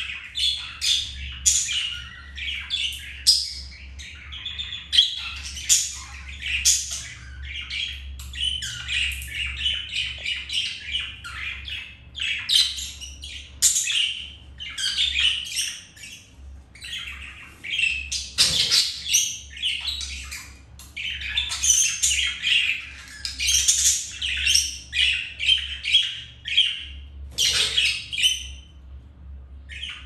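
Budgerigars chattering: short, high chirps and calls following one another almost without pause.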